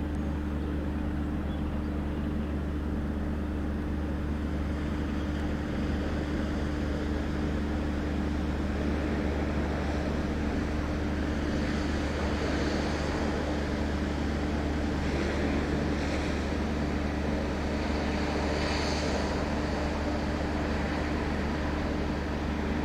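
Class 33 diesel locomotive's Sulzer eight-cylinder engine running steadily with an even, low drone, with a few brief higher-pitched sounds about midway and near the end.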